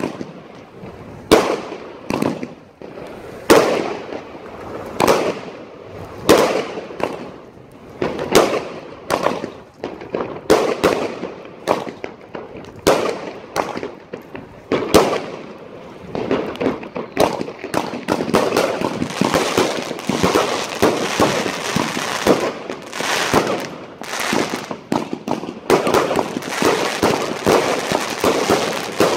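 Consumer fireworks going off: sharp single bangs with a short ringing tail, about one every second or so. From about 18 seconds in they merge into a dense, continuous crackling of many rapid pops.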